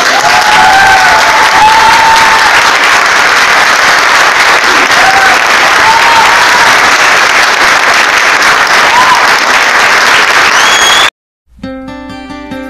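A crowd applauding loudly with a few whistles. It cuts off abruptly about eleven seconds in, and after a brief silence strummed acoustic guitar music begins.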